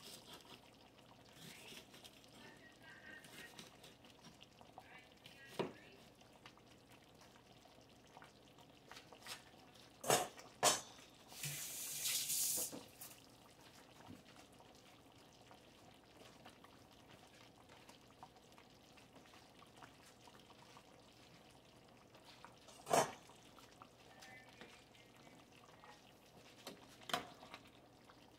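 Pot of chicken adobo simmering on a gas burner: a soft, steady bubbling, broken by a few sharp clicks and knocks and a short hiss about twelve seconds in.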